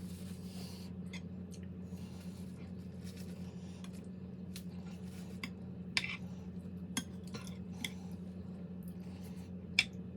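Cutlery clicking against a plate or bowl during a meal, a few scattered sharp clicks with the loudest near the end, over a steady low hum.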